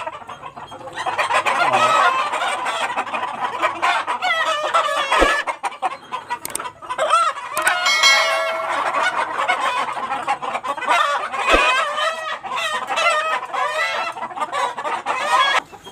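A flock of Australorp chickens clucking and calling continuously, with roosters crowing now and then. Two brief knocks sound, about five seconds and about eleven seconds in.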